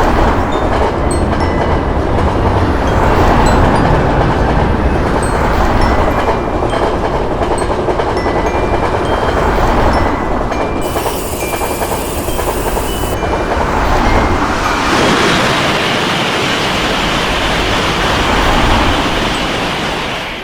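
A train running past a level crossing: a loud, steady rumble and rattle of wheels on rail. Short repeated tones of the crossing's warning bell ring faintly over it. A high hiss comes in for about two seconds partway through.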